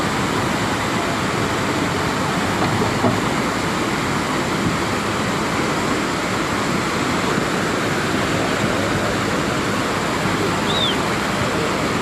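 A flooded river in spate rushing and churning: a steady, loud wash of fast, muddy water.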